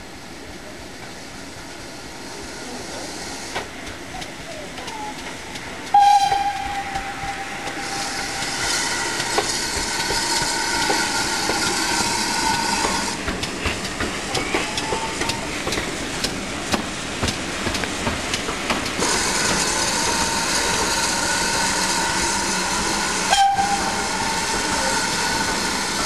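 Great Western small prairie steam tank engine No. 4566 working a train of carriages past, getting louder as it comes close, with the wheels clattering over the rail joints. Its whistle sounds briefly about six seconds in and again near the end.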